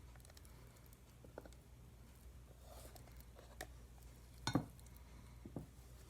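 A paint spatula scraping butter and tapping against a measuring cup: a few faint, light clicks, the sharpest about four and a half seconds in.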